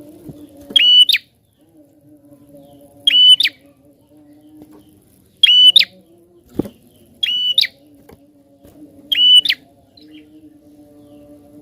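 A prinia calling: a short, loud, shrill call repeated five times, about every two seconds, over a faint low hum.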